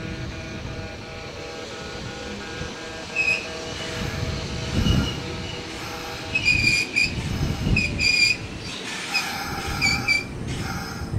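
Kintetsu 9000 series electric train pulling into a station and braking to a stop. A steady hum fades in the first seconds, then come repeated high-pitched squeals and low rumbling thuds from the wheels as it slows.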